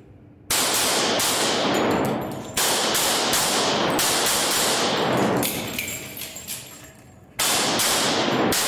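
Pistol fired in quick strings of shots, echoing in an indoor range. One string starts about half a second in and another follows from about two and a half seconds. After a pause of about two seconds, a third string comes near the end.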